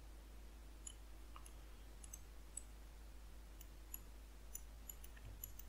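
Near silence with a handful of faint, scattered computer mouse clicks.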